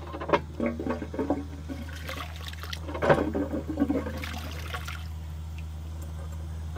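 A 1920s Royal Doulton 'Renim' cast iron bell-siphon cistern flushed by its pull chain: a few clanks of the chain and lever, then water rushes down the flush pipe for about three seconds, loudest early on and tailing off. It is an inefficient flush, which the owner puts down to a bell siphon not tall enough, a manufacturing defect.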